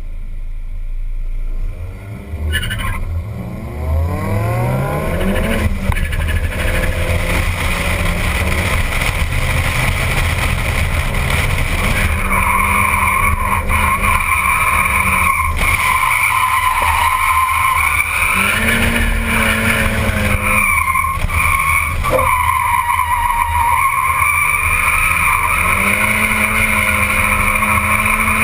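Drift car heard from inside the cabin: the engine revs up as the car pulls away, then stays on high revs while the tyres squeal steadily through long slides. The engine note dips and picks up again twice near the middle.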